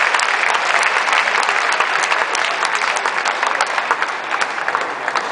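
Spectators in an arena clapping after a table tennis point, the applause thinning out gradually toward the end.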